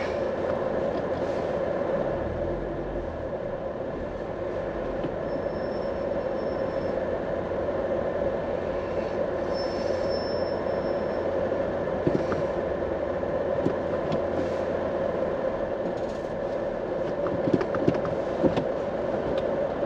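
Steady driving noise heard from inside a car's cabin: road and engine hum with a constant mid-pitched drone. A faint high whine shows up twice briefly, and there are a few light clicks near the end.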